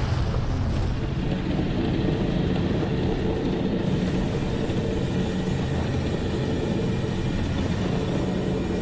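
Steady low rumble of the Nyiragongo lava lake, its churning surface and lava fountain spattering.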